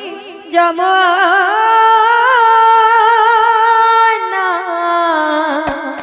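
A woman singing a devotional kirtan melody into a microphone. About half a second in she takes up one long, ornamented note that wavers and then holds steady, dropping away after about four seconds. A single low drum beat sounds near the end.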